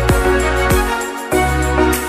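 Background instrumental music with sustained chords over a bass line.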